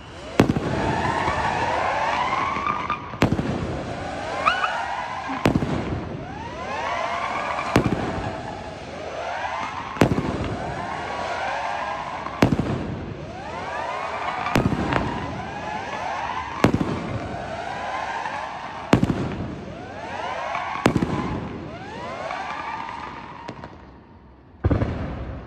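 Fireworks display: a bang about every two seconds, each followed by a cluster of rising, wavering whistles, with a pause near the end before the next bang.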